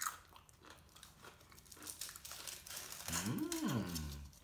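Aluminium foil crinkling as a foil-wrapped burrito is handled and unwrapped, a run of small crackles. About three seconds in, a short wordless voice sound rises and falls in pitch over the crinkling.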